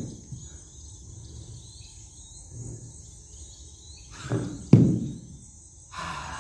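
Two dull thuds about four seconds in, half a second apart, over a steady high-pitched cricket-like hiss.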